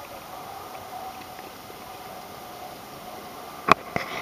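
Steady background noise with a faint hum, broken near the end by one sharp knock and a weaker one just after it.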